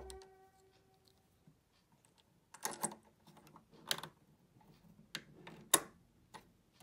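A few sharp, small clicks and taps at irregular intervals, starting about two and a half seconds in, as a bobbin case is pushed and latched into the front-loading hook race of a Janome 1015 sewing machine.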